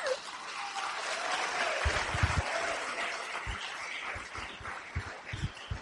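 Audience applauding, with a few dull low thumps.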